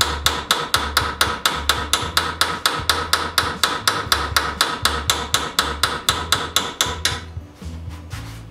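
Rapid, even hammer blows on a diamond point cold chisel, about four to five a second, each with a metallic ring, as the chisel chips a groove into a steel bar held in a vise. The blows stop about seven seconds in.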